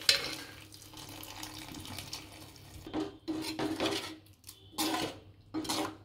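Metal ladle stirring a thin, watery masala in a metal kadai, clinking and scraping against the pan, with a sharp clank at the start as the cooked vegetables' water is poured in. The scrapes come in several short strokes in the second half.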